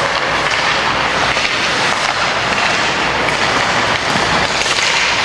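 Steady wash of ice hockey game noise in an indoor rink during play: skates on the ice and crowd murmur blended into an even din, with a few faint clicks.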